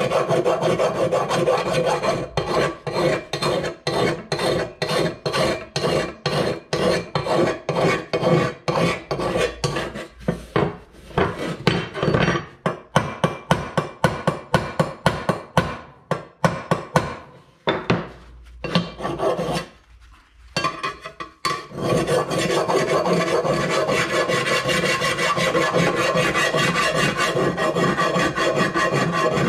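Hand file rasping back and forth across a sheet-steel cover, flushing down high spots on the welded repair. The strokes come fast and steady, with a pause of a few seconds a little past the middle before the filing picks up again.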